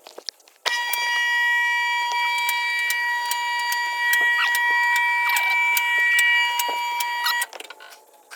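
A steady, high electronic buzzer tone that starts suddenly about a second in and cuts off abruptly about seven seconds in, with light clicks over it.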